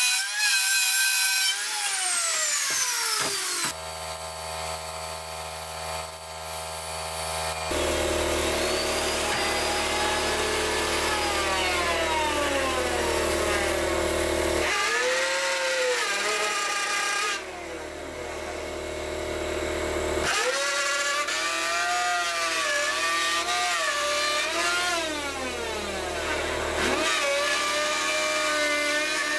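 Black & Decker plunge router running as it cuts a circular groove into the hardwood cabinet top. Its motor whine sags in pitch and recovers as the bit loads up in the wood, and it winds down and back up several times.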